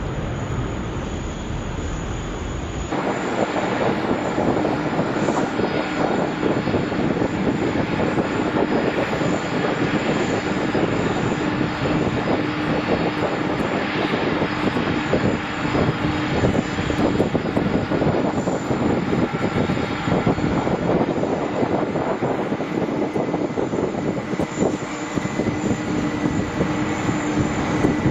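Jet airliner engines running loud and steady, a dense rushing noise with a held hum through it. About three seconds in the sound switches abruptly from a low rumble to a brighter, louder rush.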